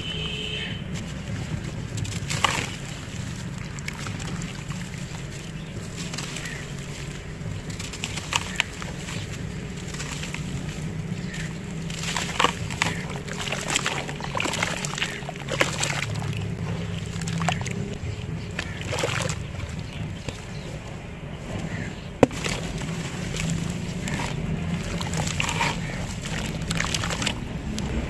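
Hands squeezing and crumbling wet lumps of sand-cement in a tub of cement-clouded water: irregular sloshing and splashing, over a steady low rumble. One sharp tap about three-quarters of the way through.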